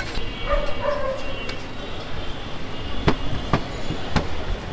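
Sharp knocks of cooking utensils at a street-food stall, three louder ones about three to four seconds in, after a short bark-like call about half a second in.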